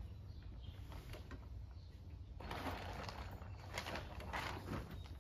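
A couple of seconds of rustling and scraping about halfway through, fitting the canvas canopy tarp dragging over the lawn tractor. Faint bird calls and a low steady outdoor rumble sit underneath.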